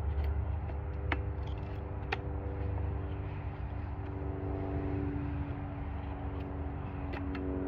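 A steady engine-like hum with a low rumble, a little stronger in the second half, with two sharp light clicks about one and two seconds in from the chainsaw's bar and chain being handled.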